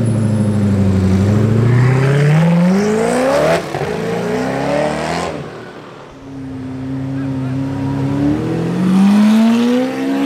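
Koenigsegg Agera R's twin-turbo V8 accelerating hard away from a standstill, the revs climbing steadily. After an edit, a supercar engine holds a steady note, then revs climb again near the end.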